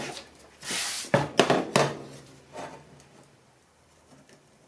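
Workbench handling noise: a short rustling scrape and several light knocks as measuring tools and a paper template are handled, all within the first three seconds.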